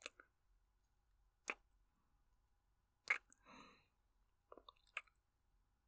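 Faint close-mic kisses: about five short wet lip smacks, roughly a second and a half apart, with a soft breath after the third.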